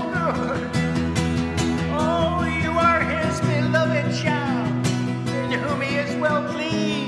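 A man singing over his own strummed acoustic guitar. The chord changes about halfway through and again near the end.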